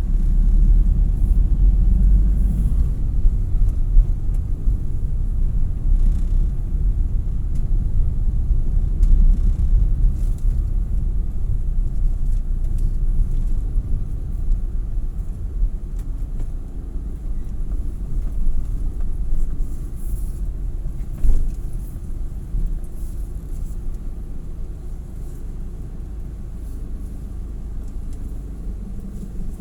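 Low, steady rumble of a moving car: engine and road noise, with a single short click about two-thirds of the way through.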